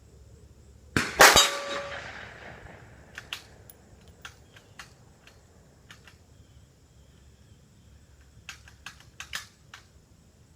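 A single .22 Magnum shot from a Savage 93 bolt-action rifle about a second in, followed almost at once by a ringing hit on a steel target. Then come scattered metallic clicks as the bolt is worked, a cluster around three to five seconds and another near nine seconds: the action is binding because the magazine is failing to hold its rounds.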